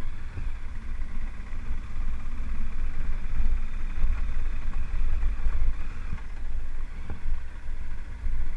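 Motorcycle running as it rides over a cobblestone street, with a heavy, uneven low rumble.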